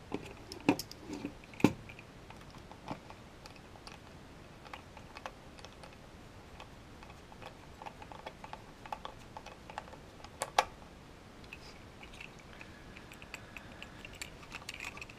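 Small precision screwdriver working stainless steel screws out of a white plastic candle housing: scattered light clicks and ticks of the metal bit on the screw heads and of the plastic parts being handled. A few sharper clicks fall in the first two seconds, and another comes past the middle.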